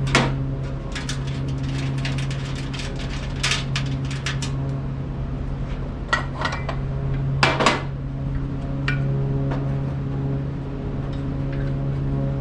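Irregular metal clinks and knocks as the pizza oven's legs and bolts are handled and fitted to its base, over a steady low hum.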